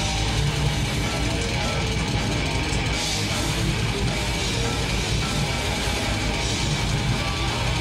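Death metal band playing live: distorted guitars, bass guitar and drum kit in a steady, dense wall of sound.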